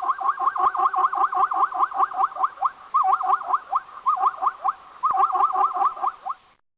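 Zebra calling: a rapid series of short barking calls, about five a second, in three runs with brief breaks, stopping about six and a half seconds in.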